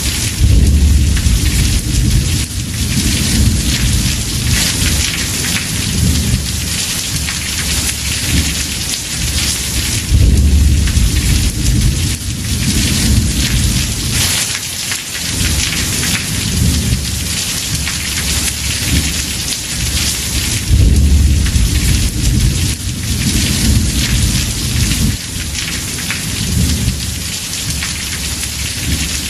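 Heavy rain pouring steadily on a house roof, with low rolling thunder rumbling under it. The thunder swells about a second in, again around ten seconds, around twenty-one seconds and once more near the end.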